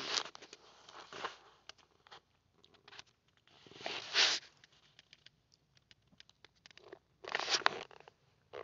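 Close rustling and handling noise with scattered small clicks, in irregular bursts of hiss, the loudest about four seconds in and another near the end.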